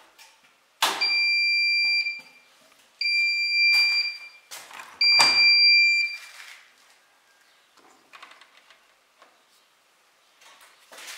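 Siemens iSensoric WM12N2K7GR washing machine sounding its end-of-programme signal: three long electronic beeps of one steady pitch, each about a second long and about a second apart. After the beeps come sharp clicks and faint handling sounds as the door is opened.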